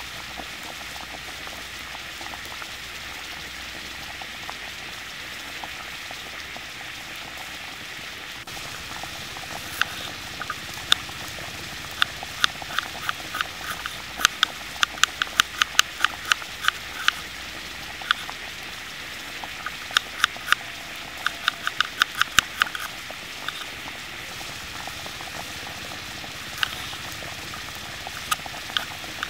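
Water boiling in a frying pan with eggs in it, a steady bubbling hiss. From about ten seconds in, a chef's knife chops red onion on a wooden cutting board in quick runs of sharp taps over the hiss.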